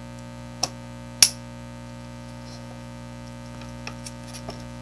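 Plastic stand of an Asus VS197 monitor clicking and knocking as it is fitted and the monitor is stood upright: two sharp clicks about a second in, then a few faint taps. A steady electrical hum underneath.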